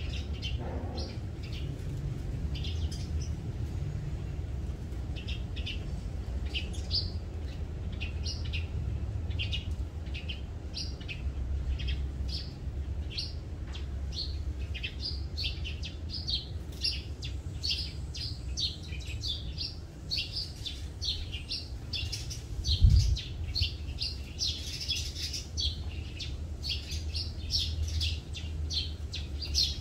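Birds chirping: many short high notes repeated throughout, growing busier in the second half, over a steady low rumble. A single low thump about two-thirds of the way through.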